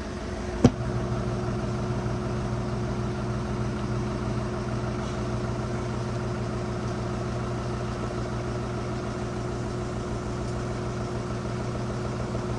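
Washing machine drum in its final spin, running at speed with a steady motor hum and a couple of held tones. About half a second in there is one sharp click or knock, after which the hum gets a little louder.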